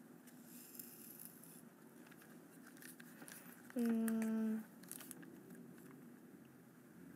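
Faint rustling of hair and light clicks as a lock of hair is wound around a curling iron, with a short hummed note from a woman, slightly falling, about four seconds in.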